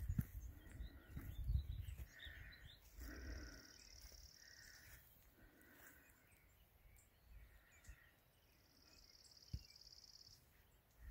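Faint outdoor ambience: a high, buzzy trill sounds twice, each lasting a couple of seconds, over scattered faint chirps. Low rumbling and thumps near the start.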